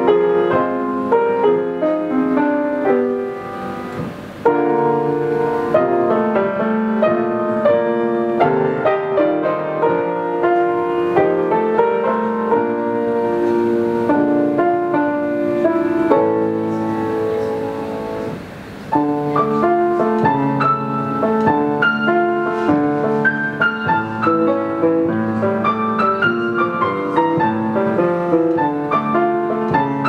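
Solo piano piece played on a 19th-century Schröder grand piano, with two brief dips between phrases, about four seconds in and near nineteen seconds in.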